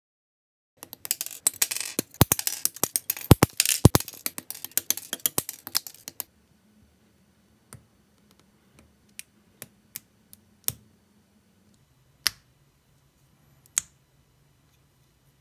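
Small plastic model-kit parts clicking and clattering in the hands: a dense rattle of clicks for about five seconds, then a handful of single sharp snaps as the arm parts are pressed together.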